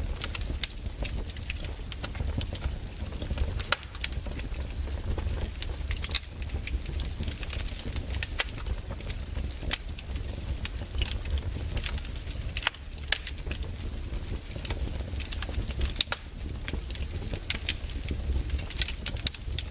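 Wood fire burning in a fireplace, the logs crackling with frequent irregular sharp pops over a low steady rumble.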